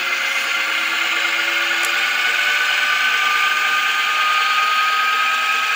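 LG front-loader direct-drive washing-machine motor spinning up on its spin cycle, turning a step-up gear drive: a steady mechanical whine made of several tones.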